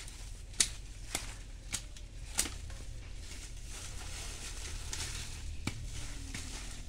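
Dry stalks and leaves crackling and rustling as they are handled, with several sharp snaps in the first couple of seconds and one more near the end.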